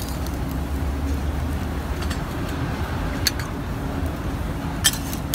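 Steady low rumble of street and griddle-stall background noise under a light hiss, with two sharp metallic clicks about three and five seconds in.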